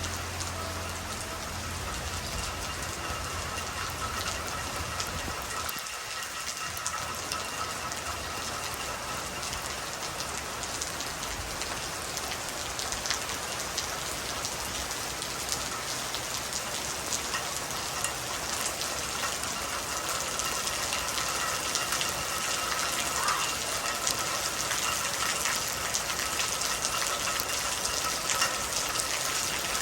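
Soft rain falling steadily, with many separate drop hits. It grows a little louder in the second half.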